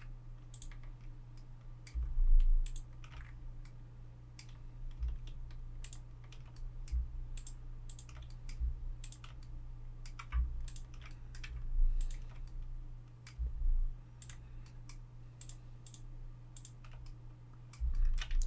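Irregular clicking of a computer keyboard and mouse during edge selection and bevelling in Blender, over a steady low hum. Several low thumps come through, the loudest at about two, twelve and thirteen and a half seconds in.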